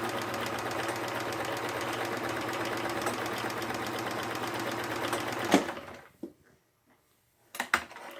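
Vintage Sears Kenmore sewing machine running steadily as it stitches, stopping with a click about two-thirds of the way through; a few sharp clicks follow near the end.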